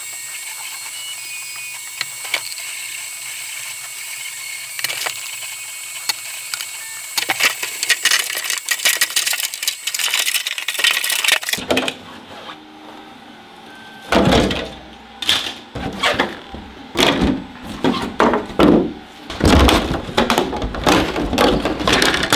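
A thin clear Lexan (polycarbonate) RC car body being worked by hand. First a light scraping as its cut edges are sanded smooth; then, from about the middle on, loud irregular crinkling and knocking as the flexible body shell is picked up and handled.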